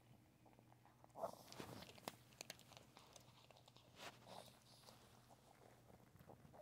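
Miniature pinscher chewing a soft meat treat: faint smacking and clicking mouth sounds, loudest about a second in and again around four seconds in.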